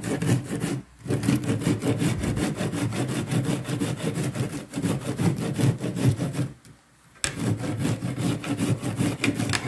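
Fresh sweet corn cob grated on a flat stainless-steel hand grater: a fast run of rasping back-and-forth strokes. It breaks off briefly about a second in, and again for about half a second a little past the middle.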